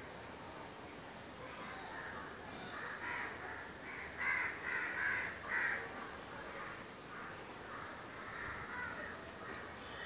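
Crows cawing repeatedly, with a cluster of the loudest caws about halfway through.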